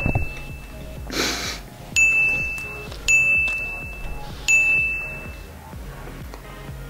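Edited-in ding sound effect, one high bell-like tone struck three times about a second apart, each ringing briefly and fading, used to count each grape going into a mouth. A short rush of noise comes about a second in, before the first ding.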